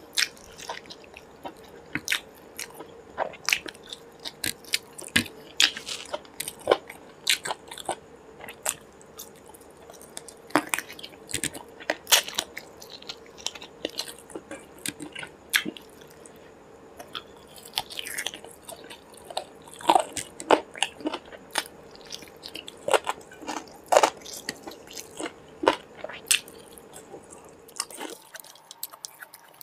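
Close-miked chewing of chicken leg and curried rice eaten by hand: irregular wet mouth clicks and smacks, several a second, fewer near the end.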